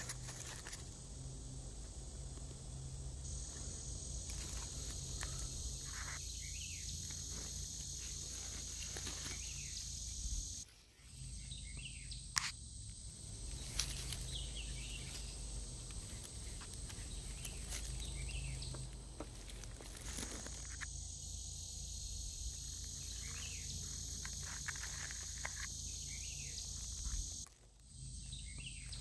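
Outdoor insect chorus: a steady high drone of insects with scattered short bird chirps over a low rumble. The whole sound drops out briefly twice.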